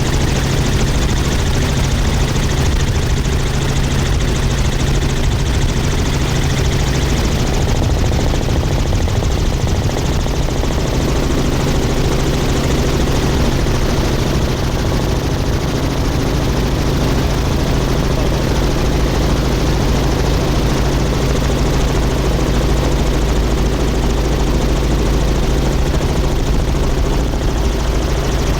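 Helicopter in flight heard from inside the cabin: loud, steady engine and rotor noise with a constant low drone.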